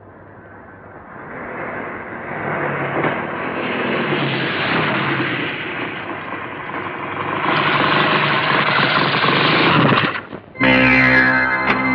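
A motor vehicle engine growing steadily louder over several seconds. Just past ten seconds it breaks off and a dramatic film-score chord with a sustained electronic sound starts suddenly.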